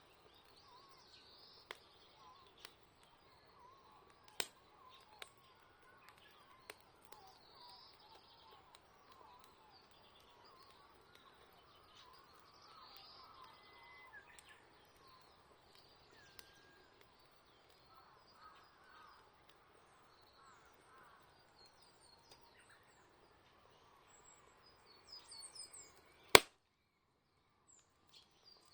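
Small birds chirping and singing over a crackling campfire, with scattered sharp pops from the fire. One loud pop comes about 26 seconds in, after which the sound drops almost to nothing for a couple of seconds before the birds resume.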